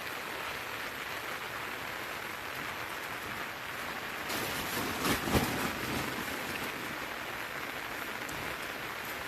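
Steady rain falling, an even hiss, with one brief knock about five seconds in.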